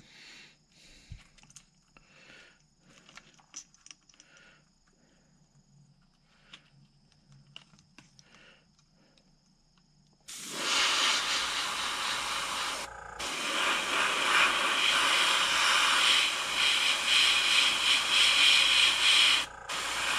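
Faint small clicks and handling noises, then about halfway through an airbrush starts spraying paint with a loud steady hiss of air. The hiss breaks off twice, each time briefly, as the trigger is let go.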